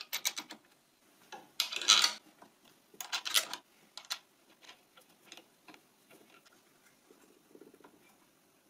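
Steel washers and wing nuts clinking and rattling against the bolts and metal drill press table as they are fitted and threaded on by hand to clamp a plywood board. Short clattering bursts come about two and three seconds in, then only faint ticks.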